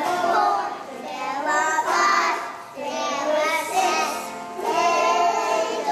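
A group of young children singing a song together, in short phrases.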